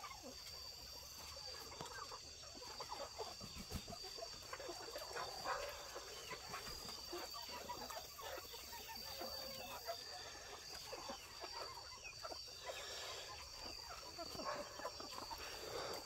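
Faint, scattered low clucking from a flock of chickens settled on the roost.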